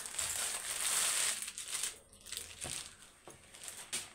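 Clear plastic garment packaging crinkling as a new kurti is pulled out of it, loudest about a second in, then dying down to lighter rustles.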